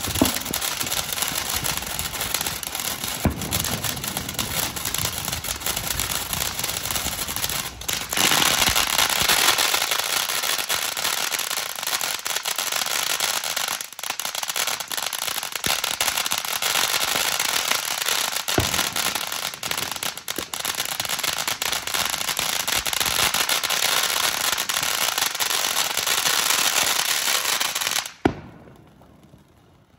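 Consumer firework fountain burning with a steady hiss and crackle, getting louder about eight seconds in, with a few sharp pops along the way. It stops suddenly with a last pop near the end.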